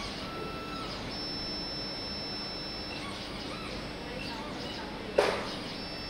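Xhorse Dolphin XP-005 automatic key cutting machine running its clamp calibration: its motors whine in thin steady tones as the clamp carriage moves, with one sharp click about five seconds in.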